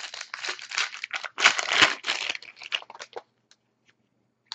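Foil trading-card pack wrapper being crinkled and torn open, a dense crackling that is loudest about a second and a half in, then dies away into a few light clicks.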